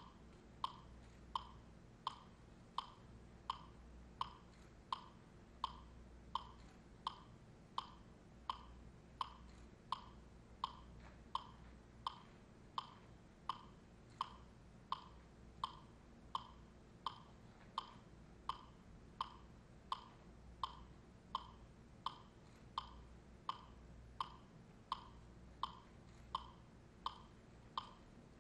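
A steady, evenly spaced clicking pulse, about three short ringing ticks every two seconds, keeping strict time.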